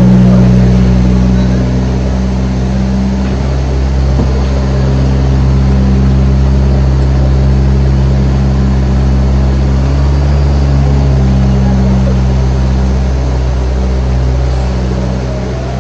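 Zoo tram's engine running steadily as the tram drives along, a low, even drone throughout.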